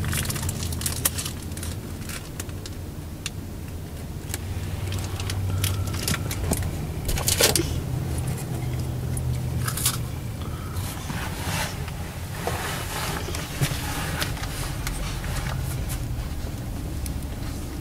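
A car heard from inside its cabin while driving slowly, a steady low engine and road hum, with scattered clicks and light scraping noises.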